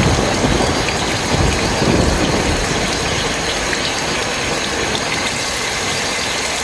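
Steady heavy rain falling, an even hiss. A low thunder rumble dies away in the first couple of seconds.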